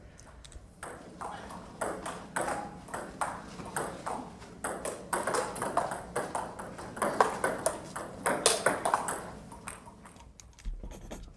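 Table tennis ball clicking on the bats and the table during a rally, in a quick, irregular run of sharp ticks that thins out near the end.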